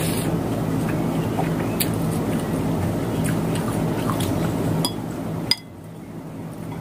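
Steady low hum and hiss from the room, picked up by the phone's built-in microphone, with soft eating sounds and a few light clicks of wooden chopsticks against a ceramic bowl. The hum drops sharply after a click about five and a half seconds in, then slowly builds back.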